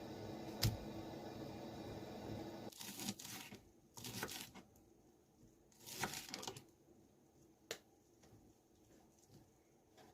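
Plastic packaging being handled: several short bursts of crinkling and tearing, with a couple of sharp clicks. A low steady hum underneath stops about three seconds in.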